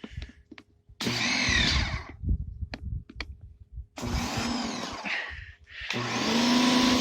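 Ryobi 1600 psi electric pressure washer run in short spells on the trigger: its electric motor and pump whir with a hissing spray for about a second, again for nearly two seconds, and once more near the end with a steady hum. Small clicks come between the spells.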